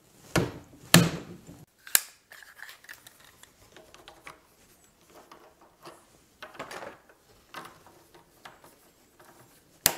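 Plastic IKEA Metod cabinet leg being fitted: sharp plastic clicks and snaps, the strongest about a second in, at about two seconds and near the end, with quieter scratchy plastic rubbing between them as the threaded foot is twisted and pushed onto its bracket.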